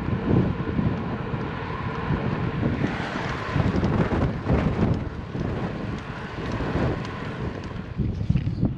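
Wind buffeting the microphone of a camera riding on a bicycle, a loud, gusty rumble, with a few knocks from the camera being handled near the end.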